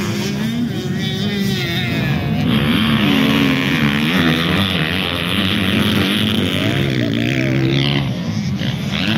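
Motocross bike engines racing, revving up and dropping off again and again as the riders power through the track and over jumps, with several bikes heard together.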